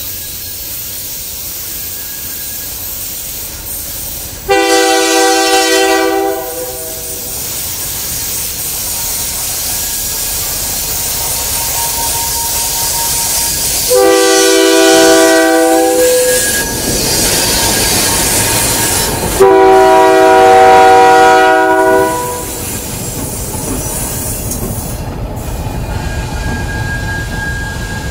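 Diesel freight locomotive's air horn sounding three long blasts, the first alone and the last two about three seconds apart, over the rising rumble of the locomotives and cars rolling by.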